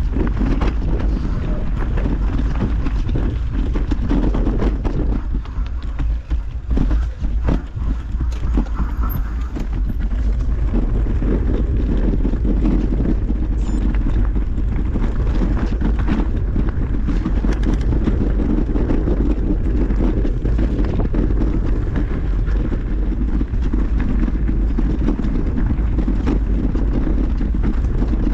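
Wind buffeting the microphone over a mountain bike rolling down a rough trail: a steady low rumble with many scattered knocks and rattles from tyres hitting rocks and the bike jolting. The rumble falters for a few seconds about a quarter of the way in, where the knocks stand out.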